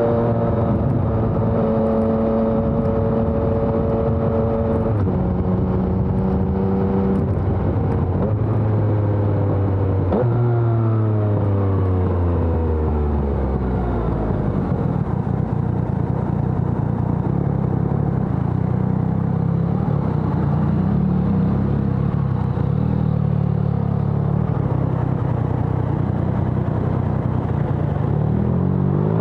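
2020 Yamaha XSR900's three-cylinder engine through a LeoVince Evo One full exhaust system. It holds a steady pitch with a couple of steps down, falls away as the bike slows from about ten seconds in, runs low and steady, then revs up again near the end.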